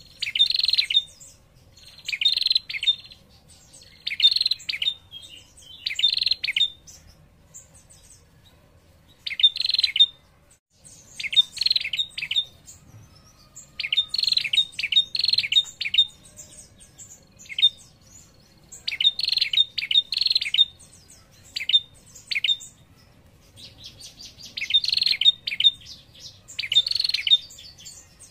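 Female prenjak, a small warbler-like songbird, giving repeated bursts of rapid, high trilling calls (ngetir), each about a second long, with a short pause around the middle. This is the female's call that draws male prenjak to answer.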